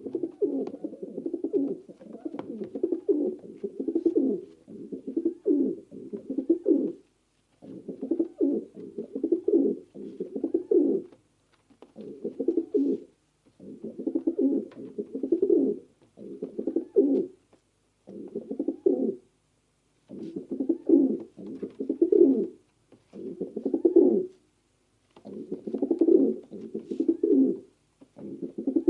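Pigeon cooing over and over: low, throaty coos of about a second each, in runs of two to four with short pauses between them.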